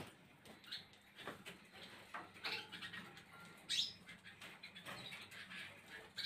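Many caged canaries chirping in short, scattered calls, with one louder, higher call about two thirds of the way in.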